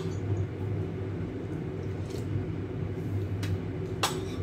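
Steady low electrical hum in a small kitchen, with a few soft clicks of a metal spoon and chopsticks against a ceramic soup bowl and one sharper click near the end.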